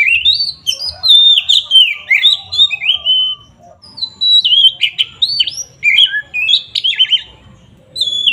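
Oriental magpie-robin singing loud, varied whistled phrases of quick sweeping notes. It pauses briefly a little before the middle, then goes on with another dense run of song.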